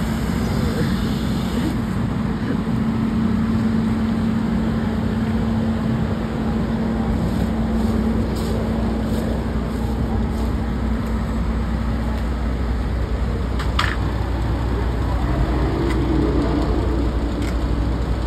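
Fire apparatus diesel engine running steadily with a constant hum, driving the pump that feeds the hose line; the hum's tone fades about two-thirds of the way through. A brief high chirp about 14 seconds in.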